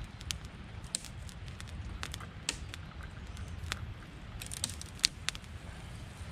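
Damp firewood burning in a small campfire, crackling with irregular sharp pops, the loudest about five seconds in, over a steady low rumble.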